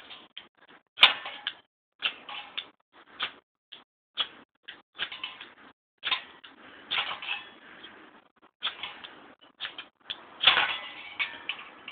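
Fire steel (ferro rod) scraped with a metal striker over tinder: a run of quick, irregular rasping strokes, some short and some drawn out, with a sharp click about a second in and the longest, loudest scrape near the end.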